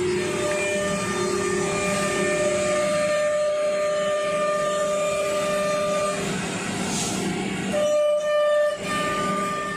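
Nesting CNC router spindle whining with a steady high tone as the bit cuts through a wood panel, over the rough noise of the cut. The whine breaks off for about a second and a half past the middle and then comes back.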